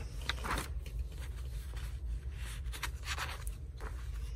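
A sheet of paper being handled and a felt-tip marker scratching across it in short strokes.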